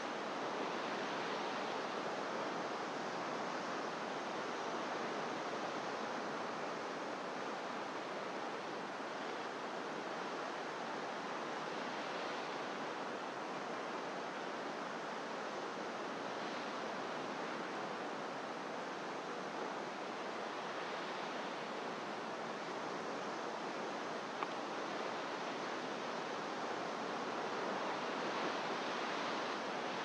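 Pacific surf breaking on rocks far below the cliffs, heard as a steady, even wash of ocean noise with little rise and fall. There is a single short click about three-quarters of the way in.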